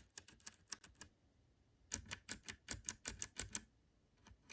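Typing on a mechanical keyboard: scattered key clicks, a short pause, then a quick run of keystrokes about two seconds in, and a few more near the end.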